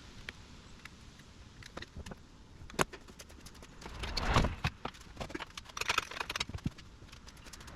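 Irregular metallic clicks and knocks of hand work, with two louder scraping, rustling stretches about four and six seconds in.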